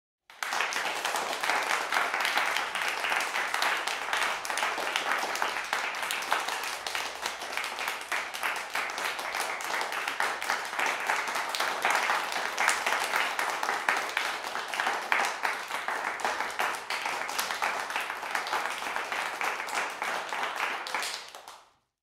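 Applause: many hands clapping in a dense, steady patter. It starts abruptly and fades out near the end.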